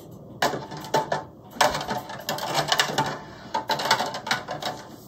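Metal canning lids clinking and rattling against each other and a stainless steel pan as one is picked out: a quick, irregular run of clicks and clatters.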